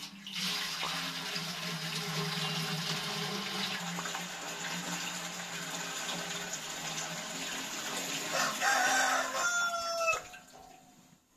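Water pouring from a plastic jerrycan into a large aluminium pot, a steady gushing splash that stops about ten seconds in. A rooster crows near the end.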